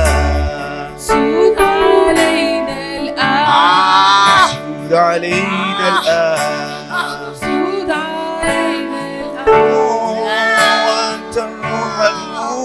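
An Arabic Christian hymn: a singing voice over instrumental accompaniment, the sung phrases coming clearest about three to five seconds in and again around ten seconds in.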